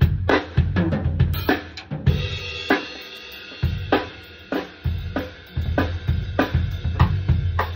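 Drum kit played freestyle: busy bass drum and snare strokes with hi-hat, and a cymbal crash ringing about two seconds in. It then settles into a steady beat with a sharp hit roughly every 0.6 seconds.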